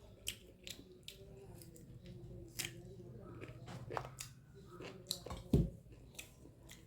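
Mouth noises of someone eating chicken and rice: chewing, with many short wet clicks and smacks. There is one loud dull thump a little past halfway through.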